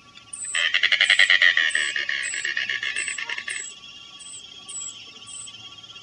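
Anhinga calling: a rapid, rattling series of clicks lasting about three seconds, starting about half a second in. Faint high chirps repeat steadily in the background.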